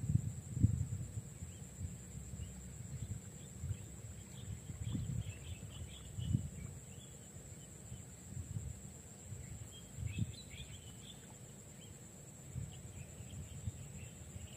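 Open-air marsh ambience: uneven wind gusts buffeting the microphone over a steady high-pitched insect drone, with scattered bursts of bird chirping.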